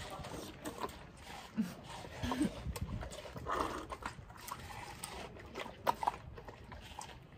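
Two Labrador retrievers eating watermelon slices: wet chewing, smacking and slurping, with irregular crunches and clicks of the rind.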